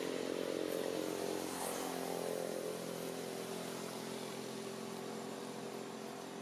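A motor vehicle engine running steadily and slowly fading away.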